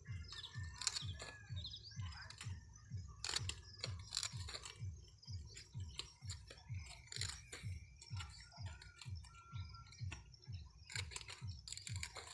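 Crisp crackling and snapping of cauliflower leaves as they are broken off and stripped from the head by hand, irregular through the whole stretch, over a soft low thumping about twice a second.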